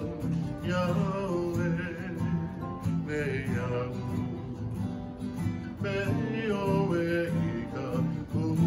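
Two acoustic guitars strummed together while a man sings along.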